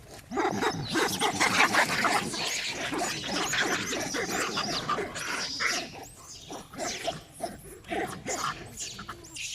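Monkeys screaming and squealing, many high-pitched gliding calls overlapping, most crowded in the first five seconds and sparser after.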